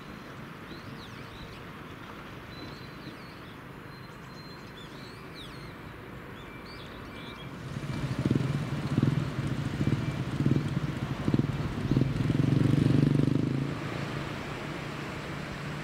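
Quiet outdoor air with a few faint high chirps, then, about halfway in, a motor vehicle passing close on the bridge: a low engine hum with pulsing rises that grows loud for about six seconds and then fades into the steady rush of river rapids below.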